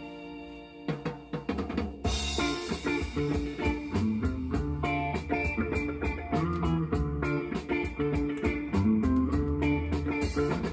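Instrumental intro of a 1981 Korean group-sound rock song: a held chord dies away, then about two seconds in the drum kit, bass and electric guitar come in together with a steady rock beat.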